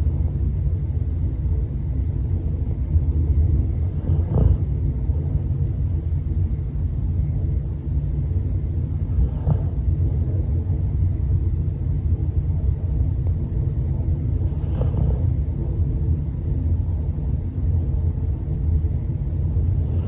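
Dog snoring over a steady low rumble, with a short, high, breathy whistle on the breath about every five seconds.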